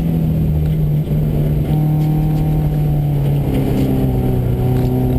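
Subaru rally car's engine heard from inside the cabin, pulling hard at steady high revs, over the rumble of tyres on a dirt road. The engine note breaks briefly about a second in and settles slightly lower about three and a half seconds in as the car eases off.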